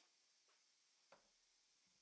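Near silence: room tone, with one faint click about a second in.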